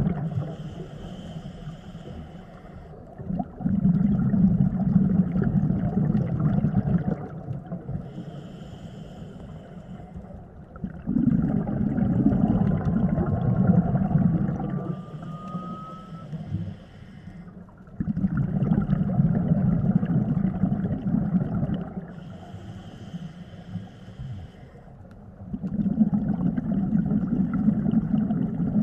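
Scuba regulator breathing underwater: a hissing inhale, then a louder bubbling exhale. The cycle repeats steadily about every seven seconds.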